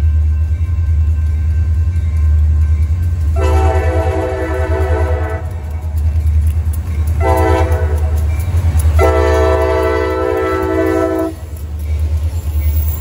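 Air horn on the lead of two CSX SD40-2 diesel locomotives sounding a chord in three blasts, long, short and long, as the train approaches, over a steady low rumble.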